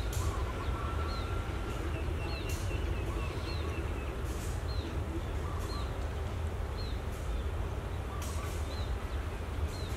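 A bird repeating a short, high chirp about once a second, with a few fainter calls from other birds, over a steady low rumble.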